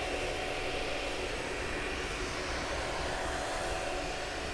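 Lotmaxx SC-10 Shark 3D printer running mid-print, heard close to its print head: a steady, quiet whir of the cooling fan with a few faint steady tones. The buzz of a wire catching the hot-end fan is gone.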